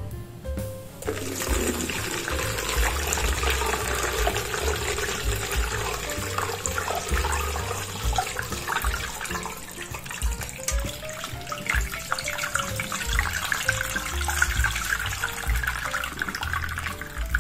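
A steady stream of pulpy ginger-turmeric-lime juice pouring and splashing into a stainless steel colander, then draining through its holes into a bowl below. The rushing pour starts about a second in.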